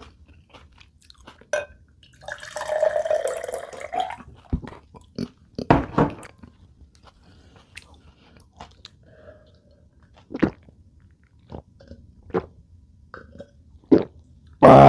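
A person eating close to the microphone: chewing, with scattered crunches and wet mouth clicks, a longer crunchy stretch about two seconds in, and a louder crunch near the middle.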